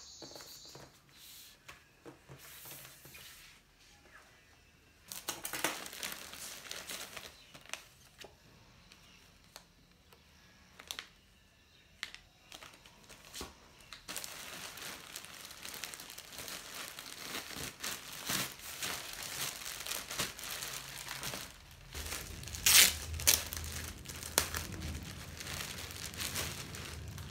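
Plastic packaging crinkling and rustling as parcels are handled and unwrapped, a plastic mailer bag and the clear plastic bag around a sweatshirt. Light scattered clicks and rustles at first, then continuous crinkling from about halfway, with the loudest crackles a few seconds before the end.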